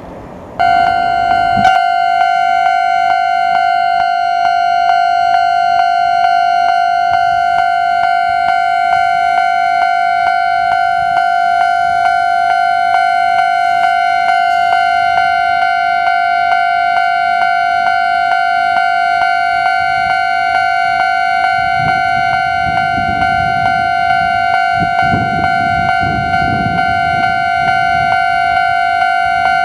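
Japanese railway level-crossing alarm starting up just under a second in, then ringing on as a loud, steady tone with a fast, regular beat. A low rumble grows under it in the last several seconds.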